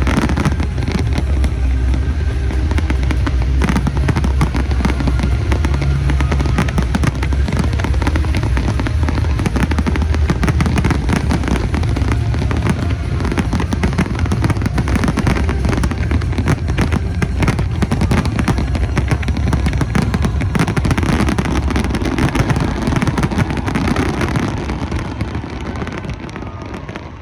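Fireworks display: rapid, overlapping bangs and crackles over a heavy low rumble, dying away near the end.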